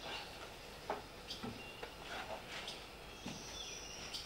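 Faint birdsong: scattered short chirps, then a long, thin, high whistle that starts about three seconds in and falls slightly in pitch.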